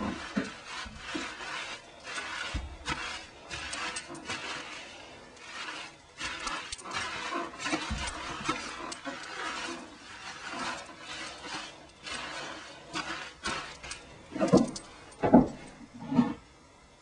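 Water poured over hair into a sink during a hair wash, splashing irregularly, with a few louder splashes near the end. Background music plays underneath.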